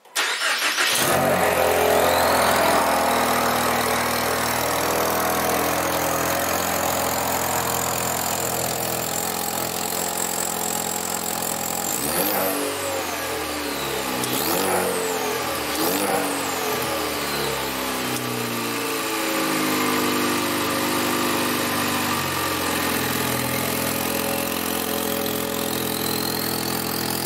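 A 2015–2022 EcoBoost Mustang's 2.3-litre turbocharged four-cylinder cranks and catches about half a second in, then settles to a steady idle. Around the middle the throttle is blipped three times, the pitch rising and falling quickly each time. This is the first start on a newly loaded tune with a new internal wastegate actuator fitted.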